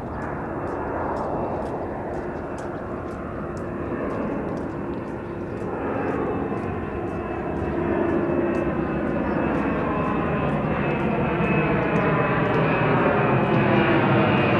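Boeing 767-300ER's twin jet engines at takeoff thrust as the airliner climbs out, growing steadily louder as it nears, with a steady high whine and sweeping pitch lines in the roar.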